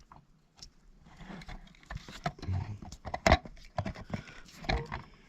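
Irregular clicks, taps and knocks of an opened plastic bell module and its parts being handled, with one louder knock a little past three seconds in.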